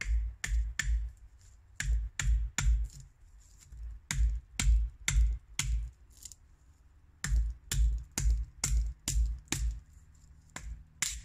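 A knife blade chopping into a wooden branch held upright against the ground: sharp woody strikes in bursts of three to six, about two a second, with short pauses between bursts.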